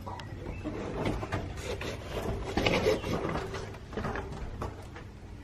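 Scattered scuffs and knocks of people climbing a narrow stairway, mixed with handling noise on the camera.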